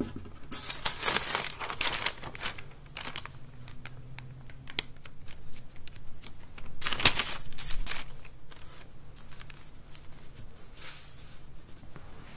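A thin paper sheet crinkling and rustling under a hand as it is folded over a ball of nerikiri and pressed down to flatten it into a disc. The crinkling comes in spells, loudest from about half a second to two seconds in and again around seven seconds in.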